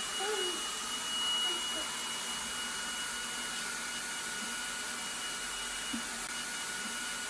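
Handheld stick vacuum cleaner running steadily, with a high whine over its motor and airflow noise.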